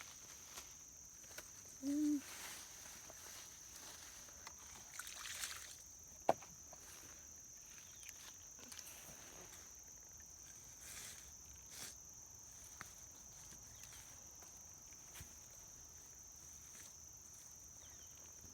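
Crickets chirring steadily in a high, even drone, with scattered scrapes, rustles and one sharp click from a garden fork working the soil of a sweet potato bed. A brief low voice-like sound about two seconds in.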